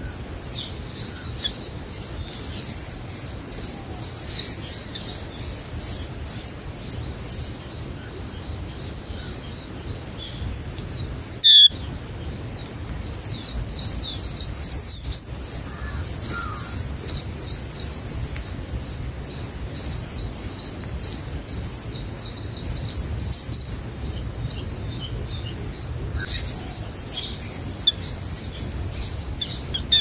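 White-eye nestlings begging while a parent feeds them: rapid, high, thin chirps, several a second, in runs that die away for a few seconds in the middle and start up again. A single sharp click sounds about a third of the way through.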